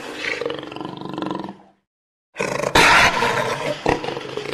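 Big cat growling and roaring sound effect. It fades out a little under two seconds in, falls silent for about half a second, then starts over, looped.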